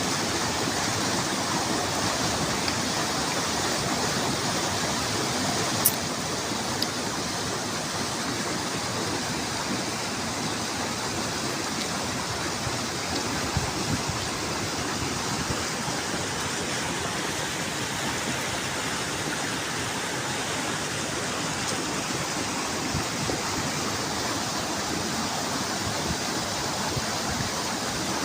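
A mountain stream rushing steadily, with a single sharp click about six seconds in.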